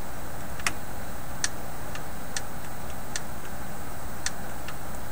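Garrard Model 3000 record changer running with its tonearm down, giving sharp ticks a little more than once a second over a steady low hum; the changer's auto-trip is failing to detect the end of play.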